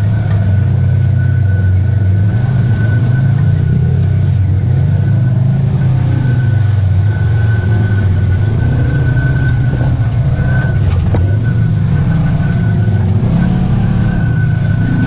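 Polaris RZR side-by-side engine running under load on a trail, its pitch rising and falling with the throttle, with a thin steady high whine above it.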